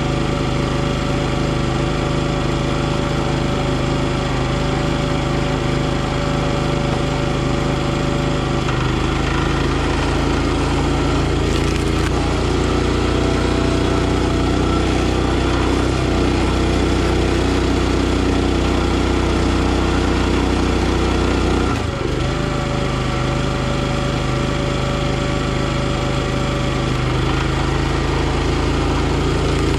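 Gas engine of a NorthStar 37-ton hydraulic log splitter running steadily. Its note deepens about nine seconds in and goes back to the earlier note a little after twenty seconds, as the ram pushes a round against the splitting wedge under load.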